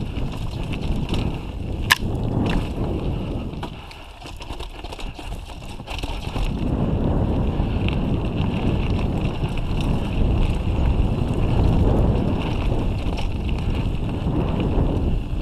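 Mountain bike rolling fast down a dirt forest singletrack: wind rushing over the microphone, with the rumble and rattle of tyres and frame on the rough trail. A sharp knock about two seconds in, and the noise drops for a couple of seconds before rising again.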